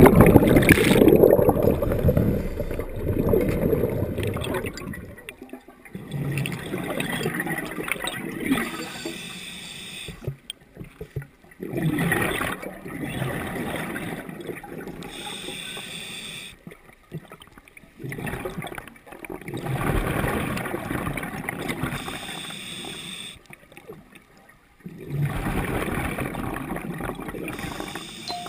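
Underwater rushing and bubbling as a diver enters the sea: a loud churn of bubbles from the entry, then repeated bursts of bubbling a few seconds apart with short quiet gaps between them.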